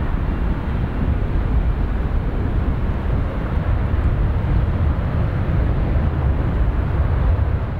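A Boeing 777-200ER's two Rolls-Royce Trent 800 turbofans at takeoff thrust as the airliner climbs away just after liftoff: steady, loud jet noise with a deep rumble.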